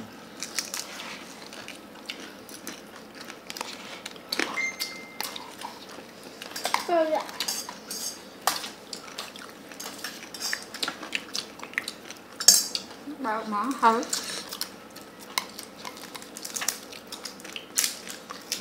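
Tableware clinking through a meal: many light, irregular clicks and taps of utensils against bowls and food containers, with the sharpest click a little past the middle. Brief voices come in twice.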